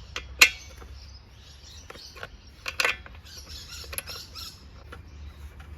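A few scattered sharp metal clicks and knocks, the loudest about half a second in, from a tool working the spark plug out of a Ryobi two-stroke brush cutter's engine.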